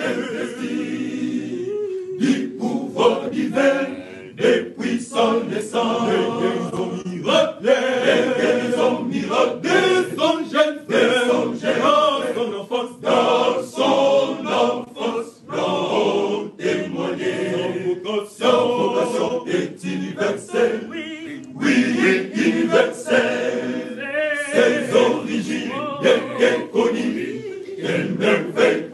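Men's church choir singing together in parts, many voices at once.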